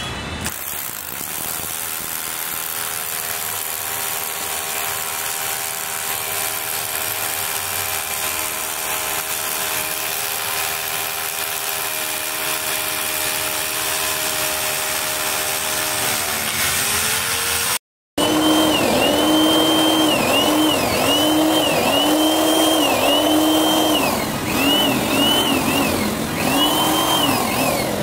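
Electric power drill boring upward into a concrete ceiling slab: a steady motor whine that winds down in pitch about seventeen seconds in. After a brief gap the whine starts again, its pitch dipping and recovering about once a second.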